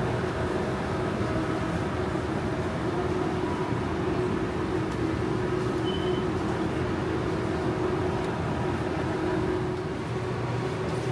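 Steady supermarket background hum, a mechanical drone with a few held tones, like store refrigeration and ventilation.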